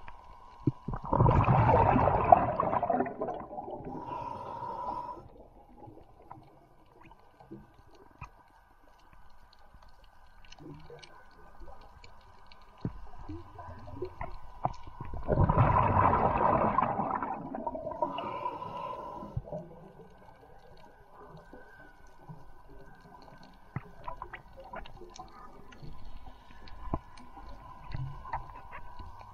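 Underwater recording of a diver's exhaled breath bubbling out, two loud gurgling bursts about fourteen seconds apart, each lasting a couple of seconds and trailing off. Between them a faint steady hum and scattered faint clicks.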